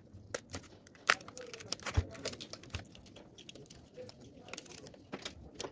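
Irregular clicks and knocks of hands and tools working on an e-bike battery pack being taken apart, with two sharper knocks about a second and two seconds in.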